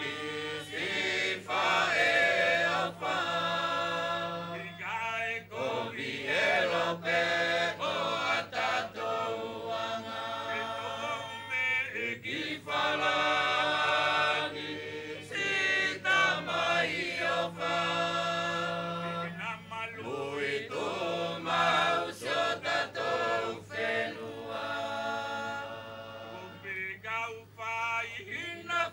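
A group of women and men singing together without instruments, chanting a traditional Wallisian me'e dance song in long phrases.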